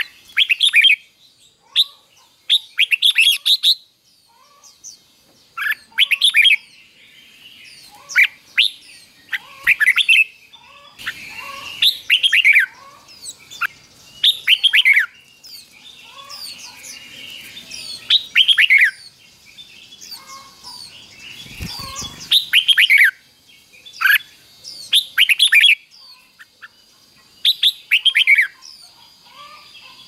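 Red-whiskered bulbul singing in short, rapid phrases of bright whistled notes, one phrase every two to three seconds, in the doubled-phrase song Thai keepers call 'เบิ้ล'. A brief low thud comes near the middle.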